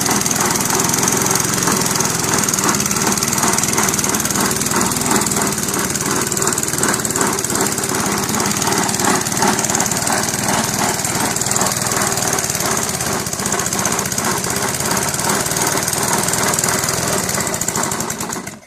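Small Honda lawnmower engine running steadily with a blown head gasket and fried piston rings, then winding down and cutting out near the end.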